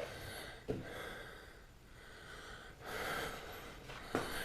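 A man's breathing close to the microphone: two soft breaths, with a faint click about a second in.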